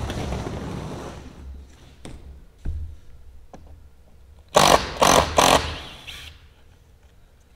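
A large hardboard (masonite) sheet scraping and rumbling as it is handled, fading out over the first second or so, with a couple of light knocks. Then, about five seconds in, three short, loud scuffing noises close together.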